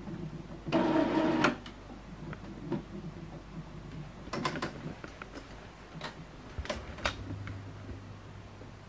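Epson XP-3200 inkjet printer running its initial ink charging: a short motor whir about a second in, then scattered clicks and ticks from the mechanism, and a low steady hum starting near the end.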